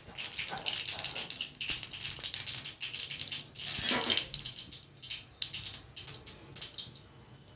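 Mustard and cumin seeds crackling and popping in hot oil, the tempering (vaghar) stage of cooking. The crackle is dense at first, with a louder burst about four seconds in, then thins out.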